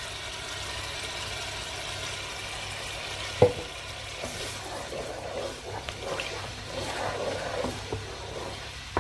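Masala frying and sizzling in oil in a pan, the oil already separated, as a ground yogurt-and-fried-onion paste goes in. One sharp knock comes about three and a half seconds in. After it, a wooden spatula stirs and scrapes the pan with light irregular taps.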